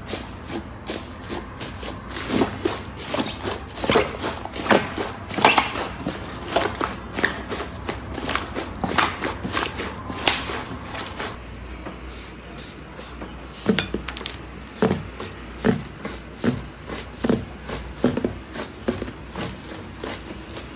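Hands pressing and kneading fluffy slime, giving dense crackling and popping clicks. About halfway through it changes to slower, lower squishy presses, about one a second.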